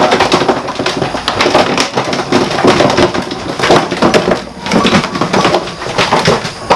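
Large plastic storage bin with a snap-on lid being lifted down from a stack, carried and set on the floor: continuous clattering, creaking and scraping of hard plastic, briefly easing off about four and a half seconds in before more knocks as it is put down.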